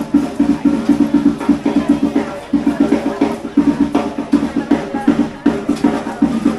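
A drum beaten in a fast, steady rhythm of about seven strokes a second, with a few brief breaks, as dance music.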